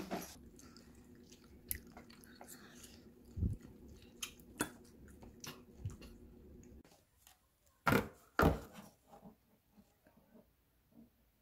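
Children eating with metal forks: scattered clicks and scrapes of forks against a bowl and plates, with chewing, over a steady low room hum that stops about seven seconds in. Two louder knocks follow about a second later, then only faint ticks.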